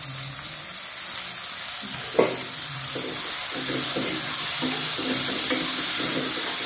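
Chopped onions sizzling in hot oil in a metal kadhai. A metal ladle clanks on the pan about two seconds in, then stirs them with repeated scraping strokes.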